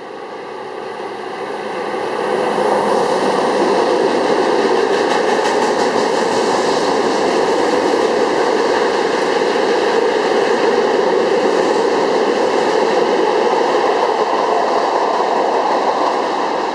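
Freight train of tank wagons hauled by a BB 75000 diesel-electric locomotive passing close by. The sound rises over the first few seconds as the locomotive draws level, then holds as a loud, steady rolling rumble of wagon wheels on the rails, easing off near the end as the last wagons go by.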